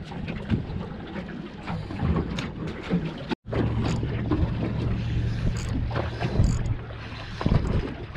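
Wind buffeting the microphone and water sloshing against the hull of a small fishing boat, with scattered small knocks. After a brief dropout about three and a half seconds in, a steady low hum joins for about three seconds.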